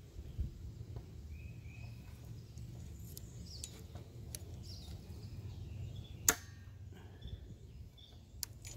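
A steel siding gauge tool and a board offcut handled together over a low rumble, with one sharp click about six seconds in and two lighter clicks near the end. Faint bird chirps in the background.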